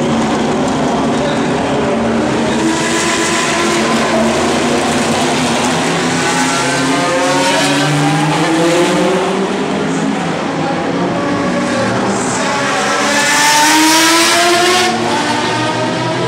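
GT racing cars accelerating past one after another, their engine notes rising as they go by. The loudest pass comes about thirteen to fifteen seconds in.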